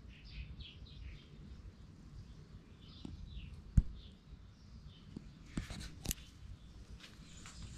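Small birds chirping in short repeated notes, with a single sharp knock a little under four seconds in and two softer clicks a couple of seconds later.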